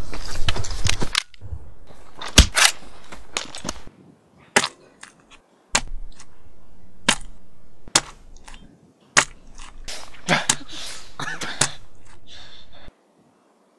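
Gunfire: a dense volley of shots for about the first second, then scattered single shots over a steady background rumble. Everything cuts off suddenly near the end.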